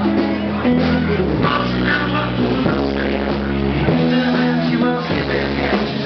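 Live band playing through a PA: bass, guitar and a sustained amplified harmonica lead, with no clear singing.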